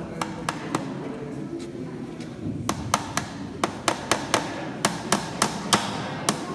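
Small hammer tapping on the lid of a box to seal it shut: three light taps, a pause of nearly two seconds, then a quick run of taps, about three a second.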